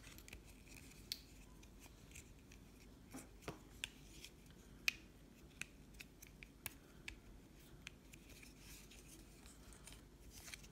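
Plastic parts of a Transformers Power of the Primes Swoop toy clicking as it is transformed by hand: about a dozen faint, irregular snaps and clicks of joints and pegs being moved and set.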